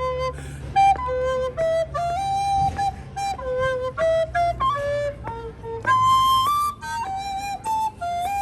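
Flute music: a quick melody of short, separate notes, with a steady low hum beneath.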